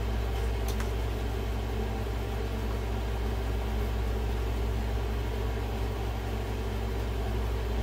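A steady machine hum at an even level, with a faint click under a second in.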